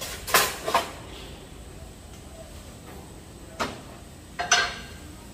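Cookware and utensils clattering: sharp metallic clinks and knocks, two close together near the start and two more about a second apart later on, the last ringing briefly.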